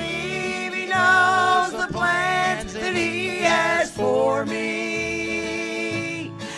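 Country gospel song: a melody held with vibrato over steady bass and instrumental accompaniment.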